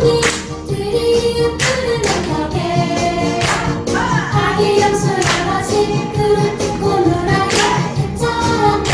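A sung song with accompaniment, cut through by sharp claps or slaps on the beat: body-percussion strokes played along with the music.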